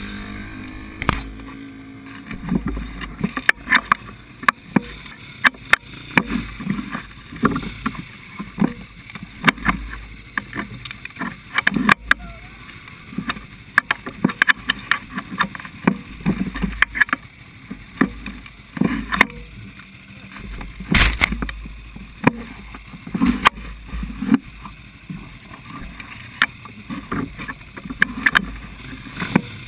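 Muffled low rumble of a stationary quad, heard through a GoPro's waterproof housing, with many irregular knocks and clicks as the rider shifts about on the machine.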